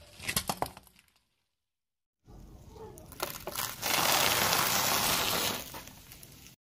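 A car tyre rolls onto a small orange plastic object, which cracks in a few sharp snaps. After a short gap, the tyre rolls over a pile of crunchy cereal puffs, crushing them in a loud, dense crunching that lasts about two seconds.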